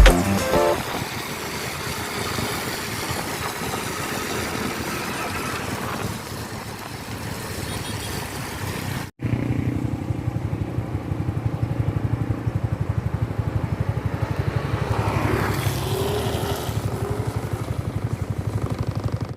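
Motorcycle engine running while riding, with wind noise over it for the first nine seconds. After a sudden cut, the engine is heard closer as a steady low pulsing, its pitch rising briefly near the end.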